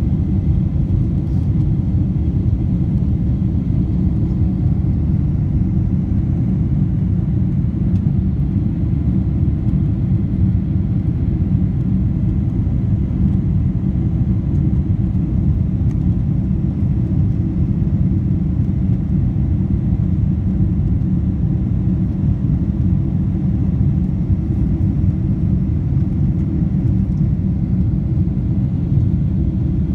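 Steady low rumble of a Boeing 747-8's GEnx engines and airflow, heard inside the passenger cabin during the climb after takeoff.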